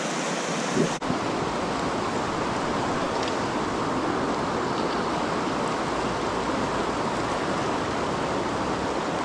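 Steady rush of a fast mountain river running over rocks and riffles.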